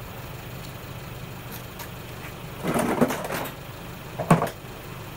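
Mercedes-Benz C300's engine idling with a steady low hum. Partway through comes a scraping, crunching noise lasting about a second, and a sharp knock follows near the end.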